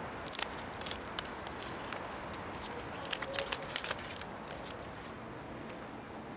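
Gift wrapping being taken off a small box by hand: paper crinkling in short bursts of sharp crackles, within about the first second and again around three to four seconds in, over a steady background hiss.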